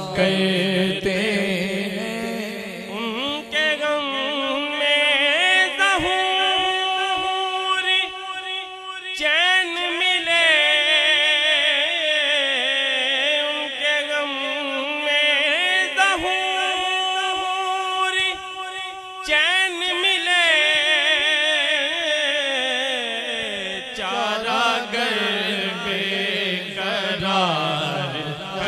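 A male naat reciter singing through a microphone, drawing out long held notes with wavering, ornamented pitch.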